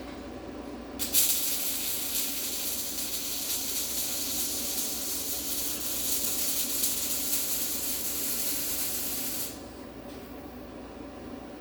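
Electric arc welder laying one bead: the arc strikes with a sharp crack about a second in, hisses steadily for about eight seconds, and stops suddenly.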